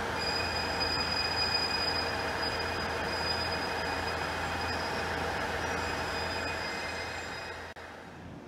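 Steady high-pitched whine over a low hum from E129-series electric trains standing at the platform, holding one pitch throughout and fading near the end.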